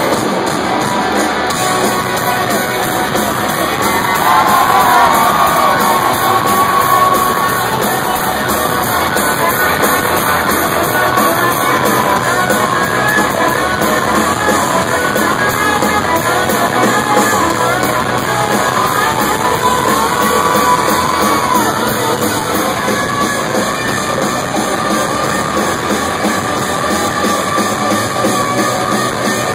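Rock band playing live at full volume in an arena: electric guitars and drums with sung and yelled vocals, heard through a phone's microphone.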